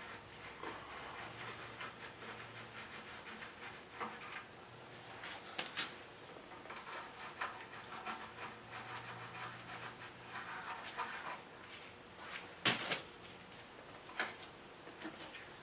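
Scattered clicks and knocks of hand tools on metal while the bolts of a Cummins diesel oil pan are undone, with one sharper knock near the end.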